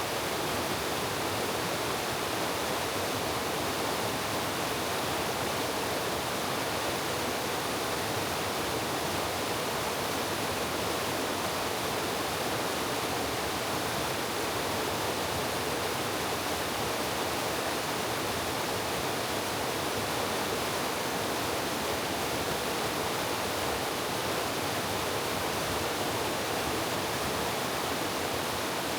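Mountain valley stream rushing steadily: an even, unbroken wash of flowing water.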